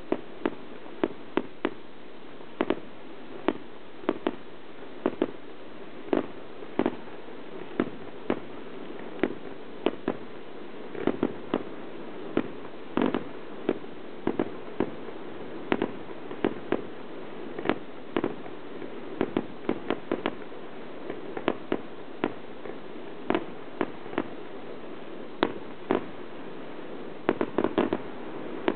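Fireworks display: aerial shells bursting in an irregular series of sharp bangs, about one or two a second, with quick clusters now and then, over a steady background hiss.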